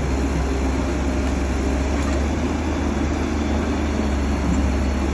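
Engine of a heavy machine such as a tractor or excavator running steadily, a constant low drone.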